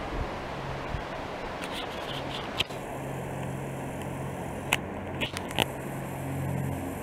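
Steady outdoor rushing noise with a faint low hum, broken by a few sharp clicks about a third, two thirds and four fifths of the way through.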